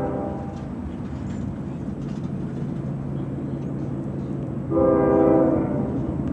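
CSX diesel locomotive's air horn sounding a chord: one blast trails off in the first half-second, then a second blast about a second long near the end, over the steady low drone of the approaching locomotive.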